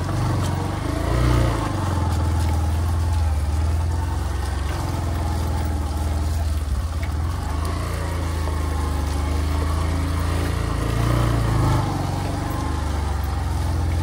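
Motorcycle engine running under load, its revs rising and easing as the bike climbs a muddy track.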